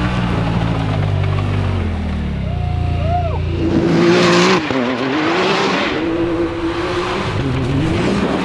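Polaris RZR side-by-side engine revving hard on a snowy hill climb, its pitch wavering up and down as the tires spin and grab, with bursts of hiss from the spinning tires. In the first few seconds only a lower, steady engine drone is heard.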